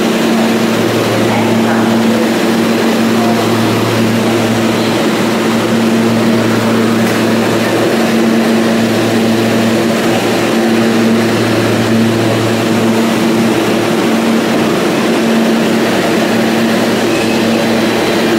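New York City Subway R160-series car standing at the platform with its doors open: a steady, loud electrical hum and whir from its onboard equipment, some of the hum tones swelling and fading every few seconds.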